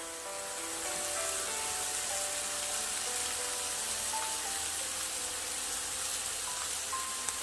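Background music with a light plucked melody over a steady sizzling hiss of food frying in a pan.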